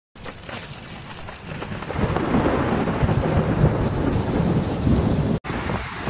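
Thunderstorm: heavy rain with rolling thunder, the rumble swelling about two seconds in. It cuts off abruptly near the end and gives way to a steady, quieter rushing noise.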